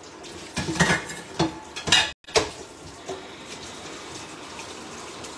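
A stainless steel pan clattering in a steel kitchen sink, four or five sharp knocks over the first two seconds or so, then tap water running steadily into the sink.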